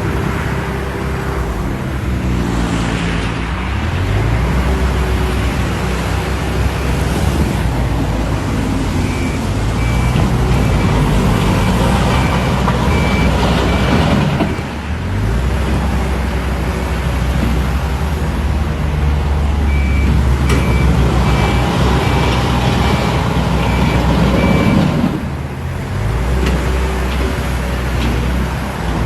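Heavy diesel construction machinery working, the engines revving up and down under load, with a reversing alarm beeping in two stretches partway through.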